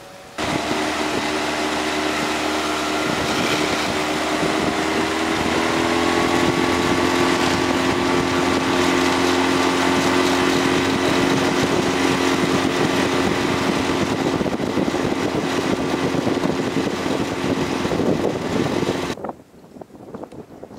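Small outboard motor on an inflatable boat running steadily under way, its pitch rising a little about six seconds in, then stopping abruptly near the end.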